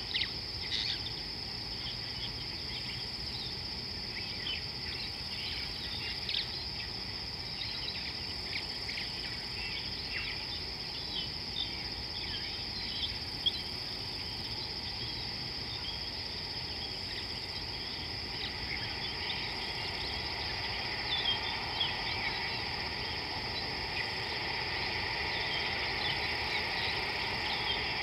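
Steady high-pitched insect chorus, with short bird chirps scattered throughout that grow busier in the last third.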